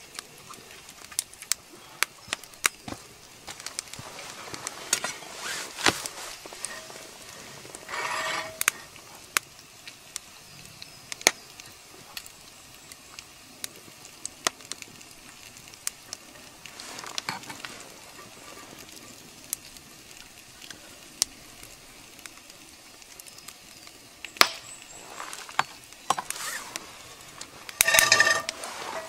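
Bacon sizzling in a cast-iron skillet over a wood campfire, with frequent sharp pops and crackles from the fat and the fire. Near the end a short metallic scrape as a knife shifts the bacon in the pan.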